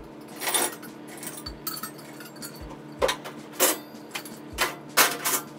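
Coffee-shop kitchenware being gathered up and handled: about five sharp clatters and clinks of dishes and utensils, the loudest near the end, over a steady low hum.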